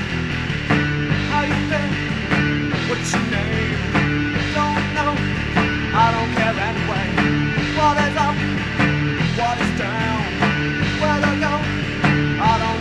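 Rock band playing an instrumental passage: drums, bass and electric guitars, with a lead line of bending notes coming in about four to five seconds in.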